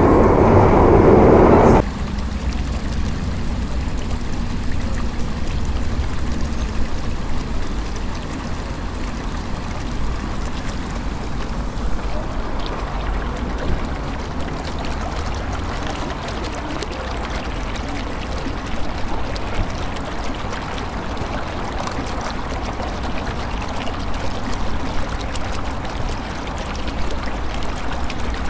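A London Underground train running, cut off suddenly about two seconds in. Then a steady rushing noise with a low rumble.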